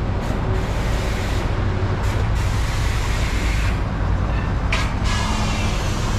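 Mitsubishi Fuso Fighter's 6M60 turbo-diesel inline-six idling steadily, with a short hiss about five seconds in.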